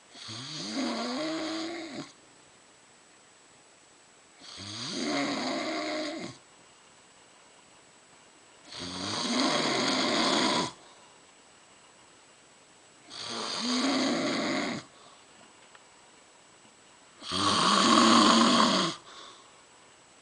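A woman snoring in her sleep: five long snores of about two seconds each, coming roughly every four seconds, with the last one the loudest.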